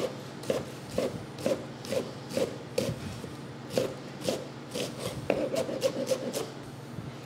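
Chef's knife dicing an onion on a plastic cutting board: blade knocks against the board about two a second, then a quicker run of taps about five seconds in.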